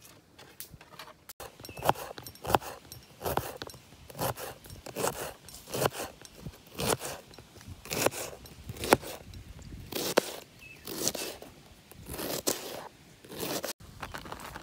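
Knife slicing through a head of cabbage on a plastic cutting board, a crisp crunch with each stroke, about one a second.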